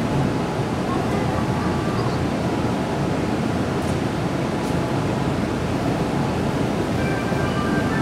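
Steady noise of a Tobu 50070-series electric train standing at the platform with its doors open, its equipment running. Faint high tones come in near the end.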